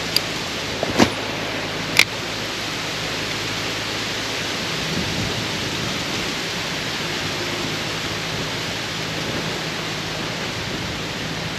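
Steady rush of flowing stream water, with three short sharp clicks about a second apart near the start.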